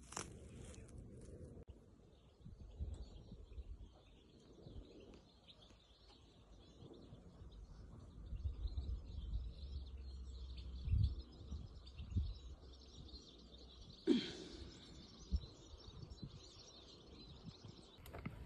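Outdoor garden ambience: faint, continuous bird chirping, under low rumble from wind or handling and a few sharp knocks, the loudest about fourteen seconds in.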